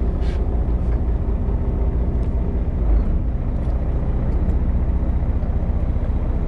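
A fishing boat's engine running steadily, a low drone that holds an even pitch.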